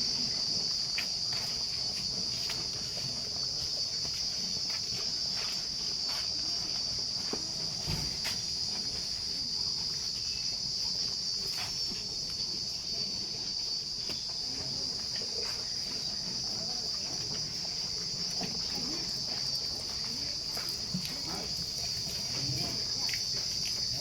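Steady high-pitched chorus of crickets, with scattered faint clicks and low rustling underneath.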